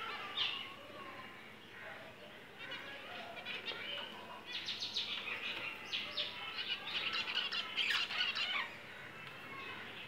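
A flock of budgerigars chirping and chattering, with a busy run of quick overlapping chirps about halfway through.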